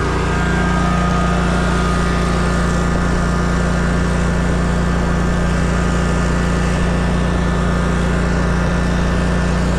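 Zero-turn riding mower's engine running steadily under load as it pulls a weighted plug aerator across a lawn.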